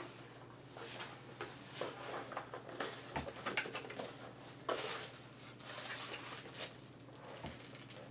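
A cardboard shipping box being opened by hand: irregular scraping, tearing and rustling of cardboard and packing.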